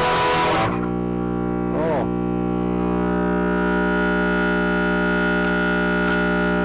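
Electric guitar through a 1967 Fender Bassman tube amp turned up loud: a distorted chord struck hard for about the first half-second, then a chord left ringing and sustaining, with a brief waver in pitch about two seconds in.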